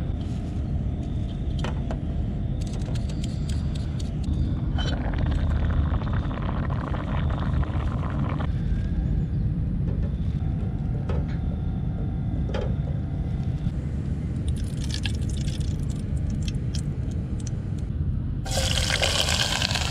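Cooking on a portable gas stove: liquid pouring into a small aluminium camping pot and utensils clinking against it over a steady low rush. About 18 seconds in, a loud sizzle starts suddenly as chopped onion and chilli hit the hot oil.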